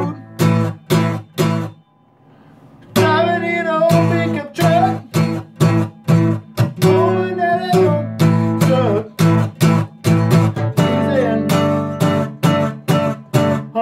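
Acoustic guitar in drop D tuning, strummed in an instrumental break, echoing a little in a small bathroom. The playing stops for about a second, around two seconds in, then starts again.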